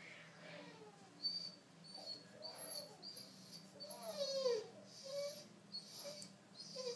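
Rottweiler whimpering in a series of short, high whines that mostly fall in pitch, loudest about four and a half seconds in.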